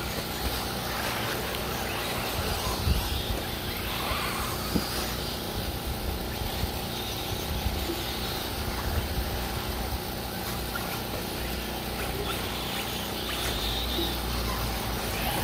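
1/8-scale electric RC buggies racing on a clay dirt track: a steady mix of electric motor and drivetrain whine with tyres working the dirt, over a low rumble.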